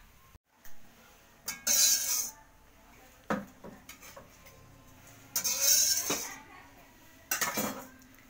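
Metal cooking utensils scraping and clattering against a steel wok and a metal tray, in three bursts of under a second each with a few sharp clicks between them.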